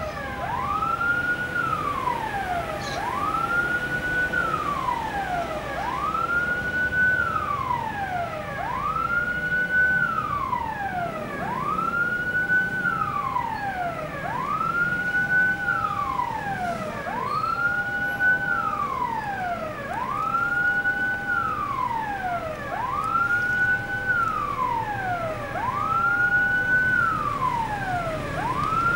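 An electronic siren wailing in a steady cycle, rising quickly, holding, then sliding down, about every two and a half seconds, with a second steady tone switching on and off beneath it. A low rumble from the passing diesel-hauled train sits under the siren.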